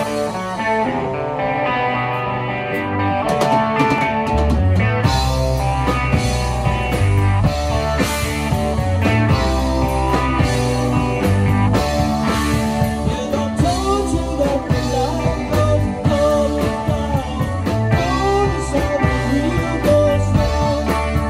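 Live rock band playing through a PA: electric guitars, bass guitar, drum kit and keyboards. The heavy low end comes in fully about five seconds in.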